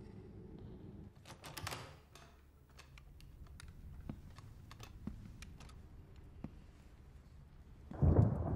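Scattered soft clicks and taps over a quiet background, then a loud low rumble starting near the end.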